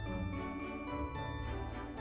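Instrumental background music: held notes that change every half second or so over a steady light beat.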